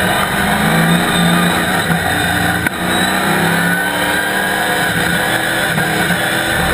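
Chevrolet Camaro race car's ZZ4 small-block V8 heard from inside the cockpit, running hard with its pitch shifting up and down. There is a single sharp knock about two and a half seconds in.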